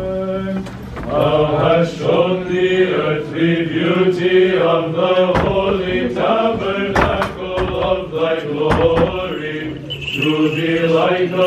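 Orthodox liturgical chant sung by several voices, with a steady low note held beneath the melody. Several sharp clicks sound partway through.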